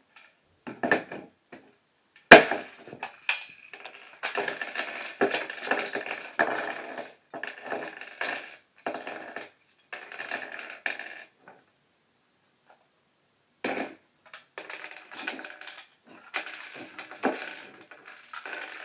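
Plastic Lego bricks being smashed and broken apart: one sharp crack about two seconds in, then rapid clicking and clattering of loose bricks, which stops for about two seconds and starts again.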